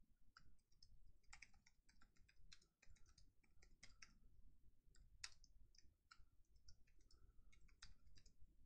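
Faint, irregular clicking of computer keyboard keys as text is typed.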